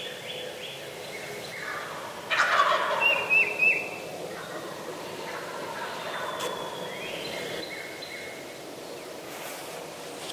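Wild turkey gobbler gobbling once from its roost tree, a loud rattling gobble about two seconds in that lasts about a second and a half. Small songbird calls can be heard around it.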